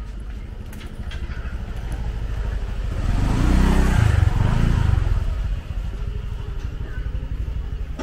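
Motorcycle engine running close by, getting louder as it approaches, loudest about three to five seconds in, then quieter as it moves off.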